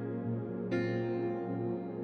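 Soft ambient background music, slow sustained piano or keyboard chords, with a new chord struck about two-thirds of a second in.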